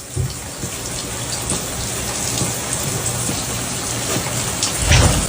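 Steady noise of falling water, cutting off abruptly at the end.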